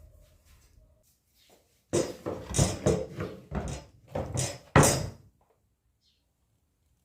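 A run of irregular knocks and scrapes from objects being handled, lasting about three seconds, with one sharp knock near the end.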